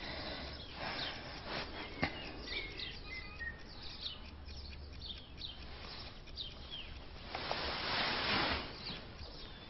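Birds chirping and tweeting in short, quick calls. A single click comes about two seconds in, and a brief rush of noise about seven and a half seconds in.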